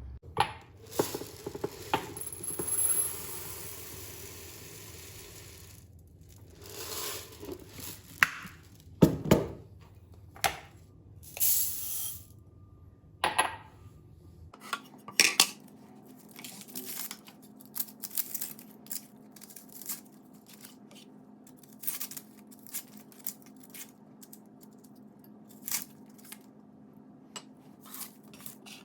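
Kitchenware being handled: dishes and utensils clinking and knocking in a run of separate clicks, with a few louder clatters. A low steady hum comes in about halfway through.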